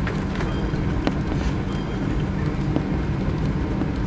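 Cabin noise inside a taxiing McDonnell Douglas MD-82: the steady drone of its rear-mounted Pratt & Whitney JT8D turbofans, with scattered light clicks and knocks.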